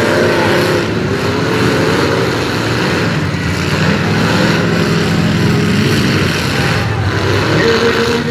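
Many demolition-derby pickup truck engines running and revving at once, their pitch rising and falling as the trucks accelerate, back up and ram each other.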